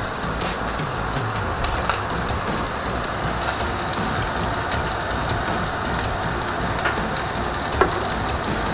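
Raw meat slices sizzling on the hot stainless-steel plate of a Solis electric teppanyaki grill: a steady hiss with scattered small pops and one sharper pop near the end.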